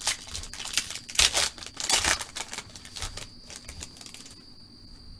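Trading cards and packs being handled: a run of quick flicks, swishes and papery rustles that stops about four seconds in.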